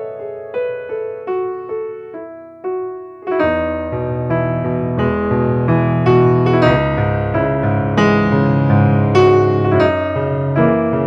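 Background piano music: a line of single notes stepping downward, then about three seconds in fuller chords and a bass line come in.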